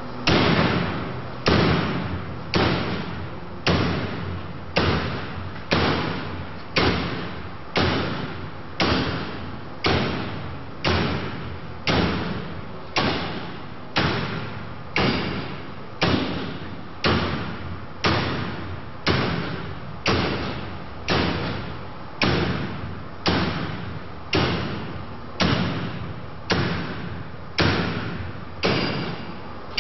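Axe blows striking a woven metal-coil wire curtain, a steady series of heavy thuds at about one a second, each trailing off briefly.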